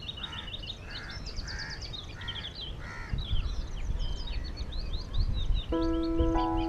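Birds singing: many quick high chirps, with a lower call repeated five times in the first three seconds. A low rumble runs underneath from about three seconds in, and sustained music notes come in about a second before the end.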